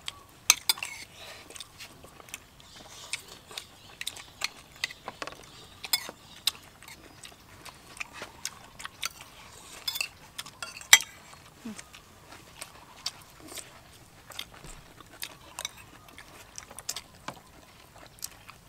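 Metal spoons clinking and scraping against plates and serving bowls in irregular, sharp clicks while people eat.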